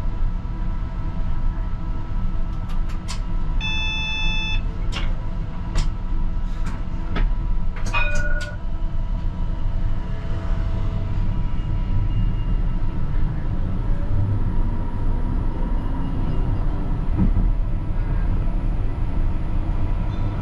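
CAF Urbos 100 tram heard from the driver's cab, a low steady rumble as it starts off and runs along the rails. In its first half come a few sharp clicks and a short electronic beep about four seconds in.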